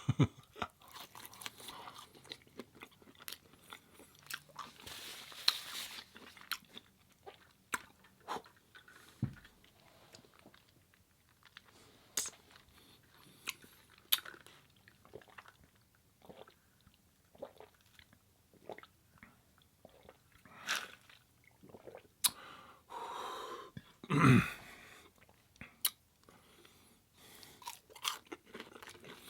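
Close-up chewing and crunching of food, with many small sharp mouth clicks. There is a louder burst of noise about three-quarters of the way through.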